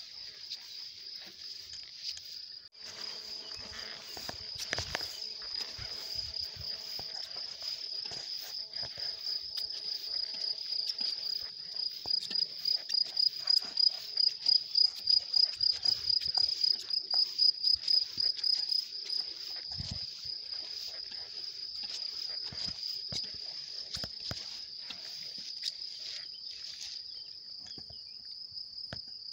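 Crickets in the meadow grass chirring steadily on a high pitch, swelling midway into louder pulses of about two or three a second. Scattered soft knocks and rustles of footsteps through the grass.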